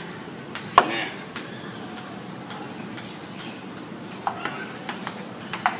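Table tennis rally: a ping-pong ball clicking off paddles and the table in irregular hits, the loudest about a second in. A few short falling squeaks come among the hits.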